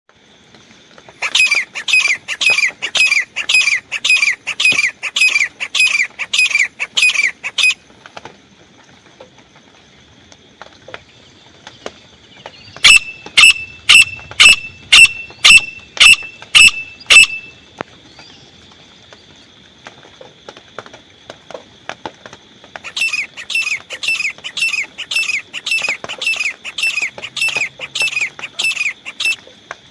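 Francolin (teetar) calling: loud, shrill calls repeated about twice a second in three bouts. The middle bout is sharper and more clipped than the other two.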